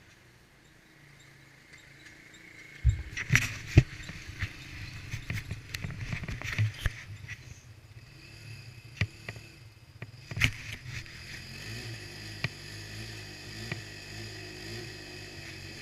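ATV engine running low and steady. It is faint at first; from about three seconds in it grows louder and is broken by sharp knocks and rattles, with the loudest knocks near the start of that stretch and again about ten seconds in.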